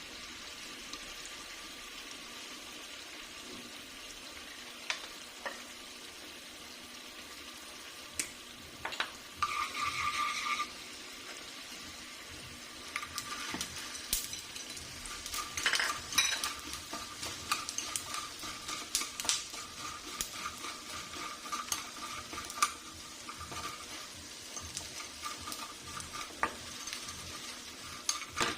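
Pork skin sizzling in a pan with a steady hiss, stirred with a utensil that scrapes and clinks against the pan. The clinks come thick and fast from about halfway on.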